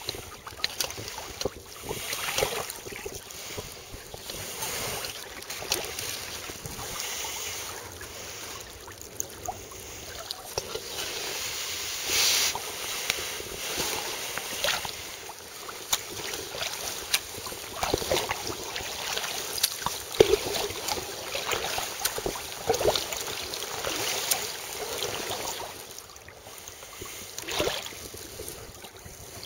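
Choppy sea water slapping and splashing against a sea kayak's hull as it sails, with irregular splashes throughout.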